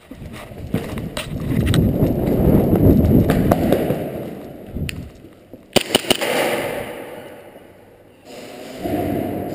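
Rumbling scuffs of a player moving fast across a concrete floor, with gear rubbing against the head-mounted camera, loudest two to four seconds in. About six seconds in comes a quick run of three or four sharp cracks.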